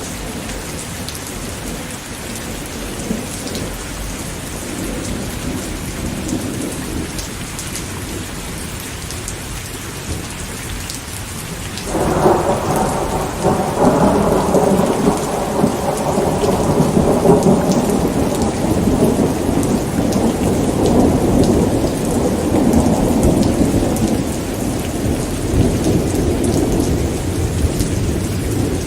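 Steady rain falling, joined about twelve seconds in by a sudden loud rumble of thunder that rolls on for many seconds and slowly eases.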